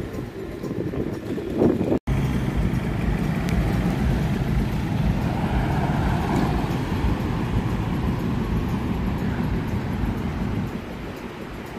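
Road traffic noise, with a vehicle's engine and tyres rumbling. It swells as a van drives past through the middle and eases off near the end. The sound cuts out for an instant about two seconds in.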